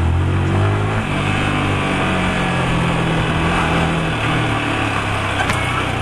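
Yamaha R15 V3's single-cylinder engine running as the motorcycle rides slowly in second gear, its note shifting slightly about a second in and then holding fairly steady, with wind and road noise on the bike-mounted camera's microphone.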